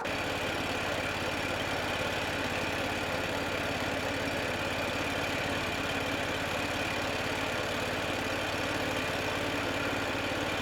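Carbureted engine of a vintage sawmill running steadily at constant speed.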